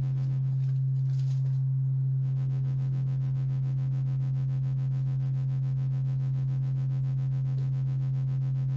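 Low, steady sine-wave tone from the Moog Model 15 app's oscillator, patched through the 904A low-pass filter and a voltage-controlled amplifier in linear mode. Added fixed gain overrides the rectangular-wave modulation, so the level holds even. About two seconds in, faint higher overtones join the tone.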